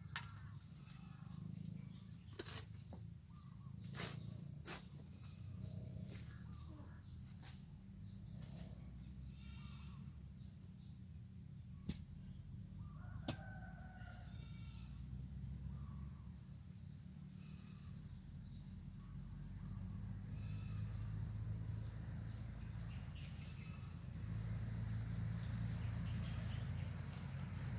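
Outdoor rural ambience: a steady low rumble, a few sharp clicks in the first half, and scattered short faint calls. The rumble grows louder near the end.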